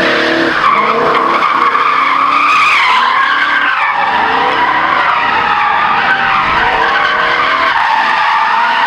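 Rally car tyres squealing without a break in a drift on tarmac, with the engine revving up and down under the squeal.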